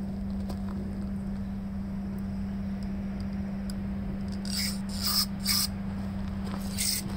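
Aerosol brake cleaner sprayed through a small-engine carburetor's passages through a straw, in short hissing bursts: three quick ones a little past halfway and another near the end. A steady low hum runs underneath.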